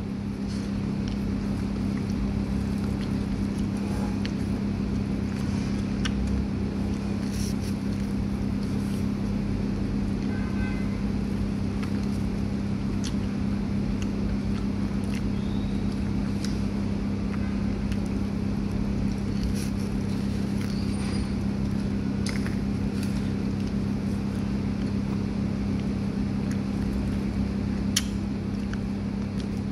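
A steady low mechanical hum over a low rumble, unchanging throughout, with a few faint clicks and a sharper tick near the end.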